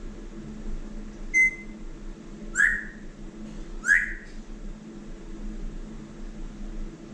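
African grey parrot whistling: one short steady whistle, then two short whistles that slide down in pitch, over a steady low hum.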